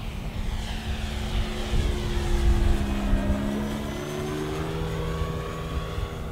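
Electric-powered Hangar 9 DHC-2 Beaver RC model flying past, its Hacker brushless motor and Xoar propeller giving a steady drone that drops in pitch about halfway through as the plane passes and climbs away. Gusty wind rumbles on the microphone underneath.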